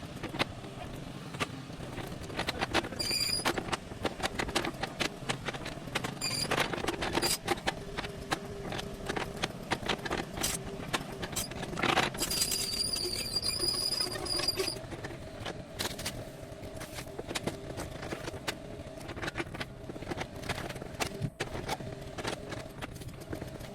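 Excavator engine running steadily, with repeated clanks and knocks of the bucket working among stones. Brief high-pitched metal squeals come a few times, the longest lasting about two seconds just past the middle.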